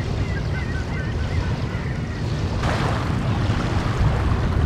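Wind buffeting the microphone with a steady low rumble. Small wavering bird chirps come through faintly for the first couple of seconds, and there is a short rush of noise a little past halfway.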